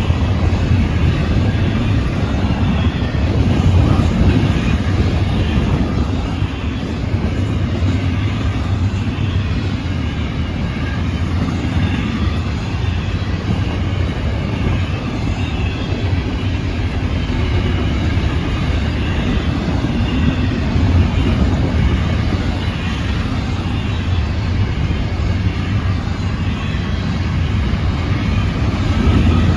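Freight train cars rolling past at speed: a steady, loud, low rolling noise of steel wheels on the rails.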